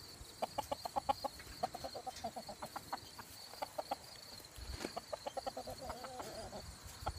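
Hen clucking in quick runs of short, repeated clucks, with brief pauses between runs.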